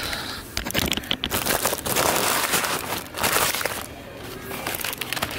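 A paper Whopper wrapper being crinkled and pulled open by hand, making a run of irregular rustles and crackles that are loudest around the middle.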